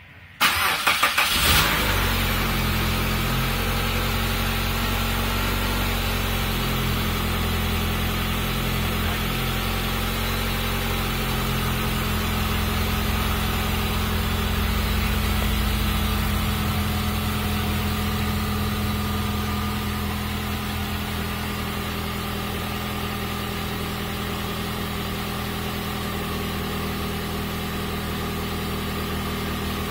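Chrysler PT Cruiser GT's turbocharged 2.4-litre four-cylinder engine catching after a brief crank about half a second in, then idling steadily, following the repair of its broken cam gear.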